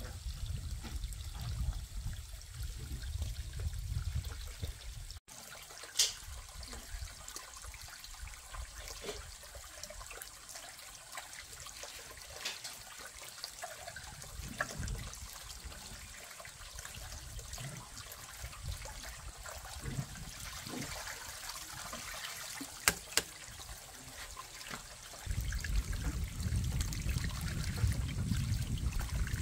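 Water running from a pipe spout into a plastic basin, splashing and trickling steadily as leafy greens are swished and rinsed in it by hand. A couple of sharp knocks stand out, and a low rumble comes in at the start and again near the end.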